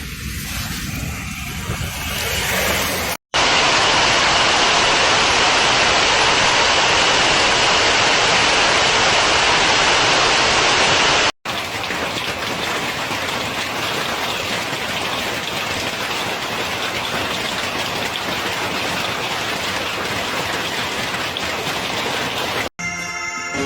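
Hail and heavy rain pelting down in a steady dense hiss, across several storm clips joined by abrupt cuts. The clip from about three seconds in to about eleven seconds in is the loudest.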